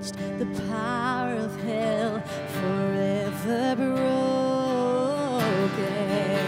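A woman singing long held notes that waver and bend, over a strummed acoustic guitar.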